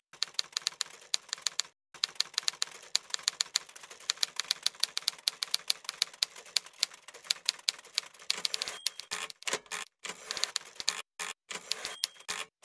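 Typewriter keys clacking in quick, irregular runs broken by short pauses, with a short bell ding twice in the second half.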